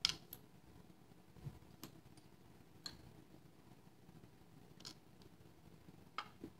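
A few small, sharp metallic clicks and taps, spaced irregularly with the sharpest right at the start, as parts of a disassembled American Lock 1105 padlock are handled by hand.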